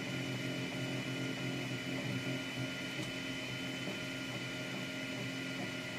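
Anet A8 3D printer printing: its stepper motors whir and hum in short, shifting tones as the print head and bed move, over a steady whine.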